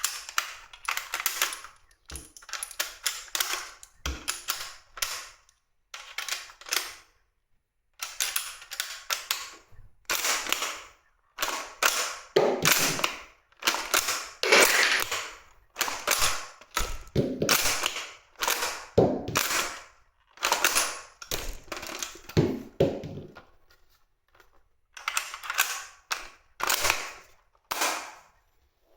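DOUBLE BELL Kar98k shell-ejecting airsoft bolt-action rifle being worked and fired: repeated metallic clacks of the bolt cycling and cartridge shells, with spring-powered shots, in short clusters of clicks separated by brief pauses.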